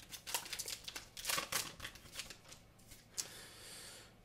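Foil trading-card booster pack and cards being handled: crinkling and rustling in a quick run of short bursts, then a steadier, fainter rustle for about a second near the end.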